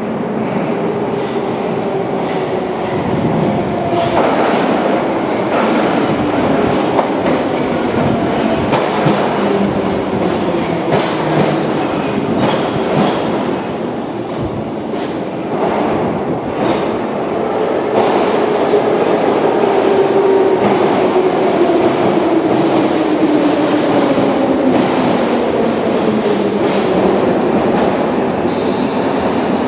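Type 81-717.5P/714.5P metro train running into an underground station and slowing: wheels click over the rail joints with some squeal, and a whine falls steadily in pitch over several seconds in the second half.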